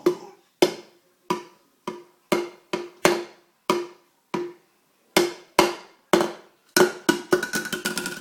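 Repeated sharp knocks on something hard that rings briefly after each blow, about one or two a second, quickening into a rapid flurry of knocks near the end.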